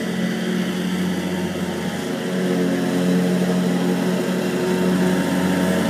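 John Deere X300 ride-on lawn tractor's engine running steadily as it drives across the lawn, getting a little louder about halfway through as it comes closer.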